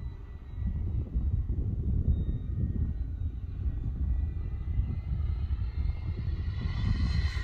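Electric RC model airplane flying overhead: a thin steady whine, growing louder near the end as it passes closer. Heavy wind buffeting on the microphone makes a loud low rumble throughout.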